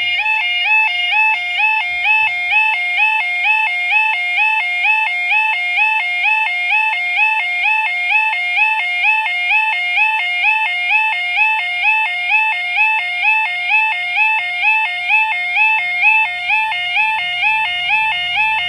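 Level crossing yodel alarm: a two-tone warble stepping between a low and a high note about one and a half times a second, sounding while the barriers are down. The low rumble of an approaching diesel train grows in near the end.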